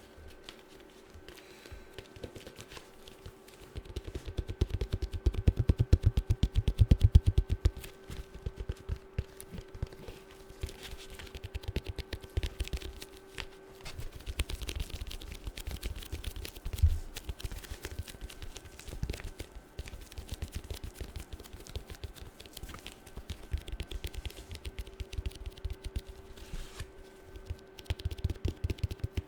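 Fast fingernail tapping in dense rapid runs of clicks, loudest in a burst a few seconds in.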